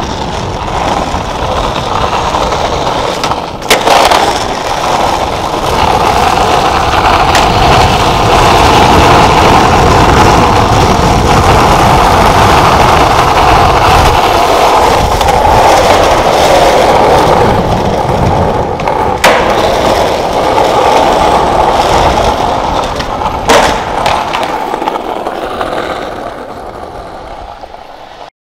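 Skateboard wheels rolling on smooth concrete, a steady rolling roar, with three sharp clacks of the board about 4, 19 and 23 seconds in. The roll fades out near the end.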